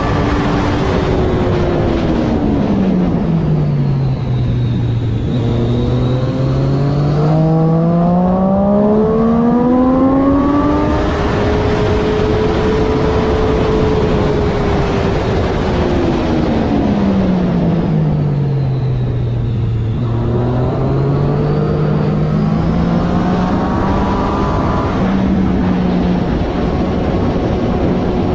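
Triumph Daytona 675R's 675 cc three-cylinder engine under race use. Its note drops steadily as the bike slows, climbs back up under hard acceleration, holds high, drops again about two-thirds of the way in, and starts climbing once more near the end.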